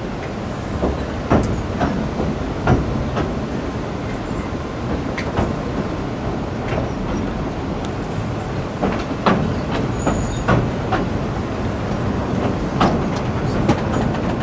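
Passenger train rolling slowly across a steel trestle viaduct: a steady rumble from the carriage and wheels, broken by irregular sharp clacks and knocks from the wheels on the track.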